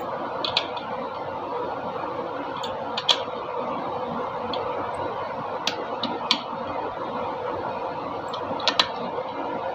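Scattered light clicks of hand tools and engine parts being handled, about eight in all, over a steady hum that holds two faint even tones.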